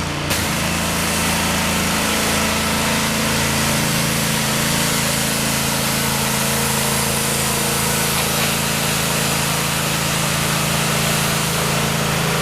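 Gas-engine pressure washer running steadily, a hum with a constant high hiss of spray over it; the engine note shifts slightly about two seconds in.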